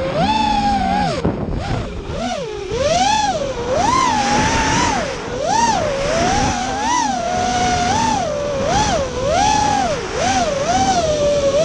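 FPV racing quadcopter's electric motors and propellers whining, the pitch rising and falling about once a second with the throttle.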